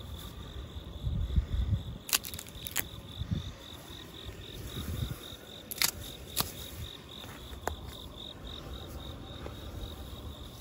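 Insects chirping steadily in a fast, even pulse, about three a second. A few sharp cracks and low rumbling handling noise come as horseweed stalks are broken off and handled.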